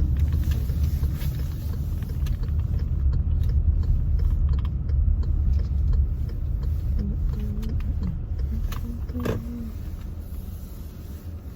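Car driving, with a steady low road-and-engine rumble that fades off as the car slows near the end.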